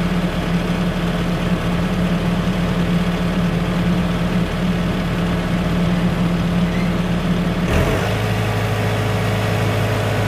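Tractor engine running steadily. About eight seconds in, its note drops abruptly to a lower, steady pitch.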